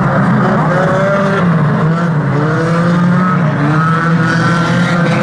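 A pack of small hatchback banger-racing cars racing together, several engines revving at once, their pitches rising and falling as they overlap.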